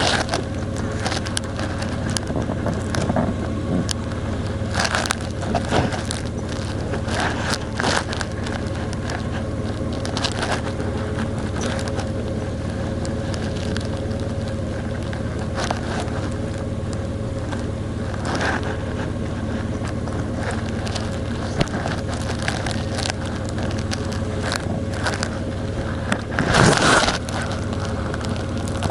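Vehicle driving along a road: a steady engine and road hum with frequent short crackles and rustling knocks, and a louder rush of noise for about a second near the end.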